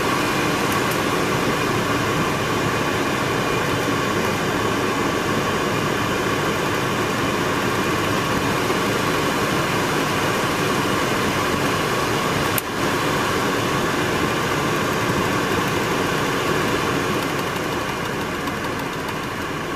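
Steady rush of a BMW E36's climate control blower pushing cold air-conditioned air, over the engine idling, heard inside the car's cabin; the blower runs without cutting out. A single click about two-thirds of the way through, and the rush eases a little near the end.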